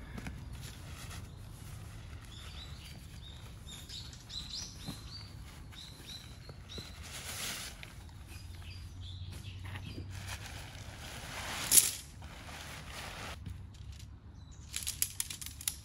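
Nylon tarp rustling as it is pulled from its stuff sack and shaken out, with one sharp flap about three quarters of the way in. Near the end, metal tent stakes clink in a quick run of light clicks; small birds chirp in the first half.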